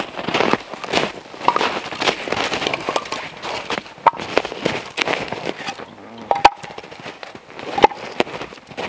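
Split cedar firewood pieces knocking and clattering together as they are picked up and gathered into armloads, with boots crunching in snow. A few sharper wooden knocks stand out, the loudest a little before the end.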